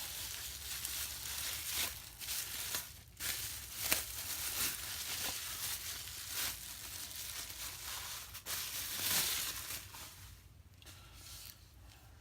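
Packaging being torn open and crumpled by hand as a box is unpacked: rustling and crinkling with scattered sharp clicks and tears, dying down about ten seconds in.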